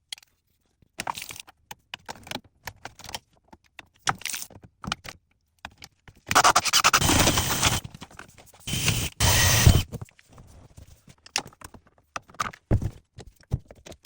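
Hands-on plumbing work noise while fitting a shower valve and PEX lines: scattered clicks, scrapes and rattles, with two louder, noisy stretches lasting about a second each, starting about six and nine seconds in.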